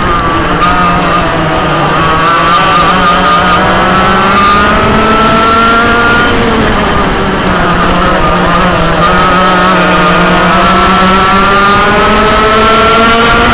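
Dirt kart engine at racing speed, revving up along the straight and dropping in pitch as the throttle is lifted for a corner. This happens twice: a dip near the start and another around the middle, each followed by a climb of several seconds.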